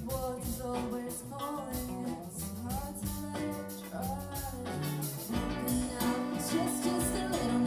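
Live band playing a pop-rock song: women singing over electric guitars, keyboard and drums. The band grows fuller and louder about five and a half seconds in.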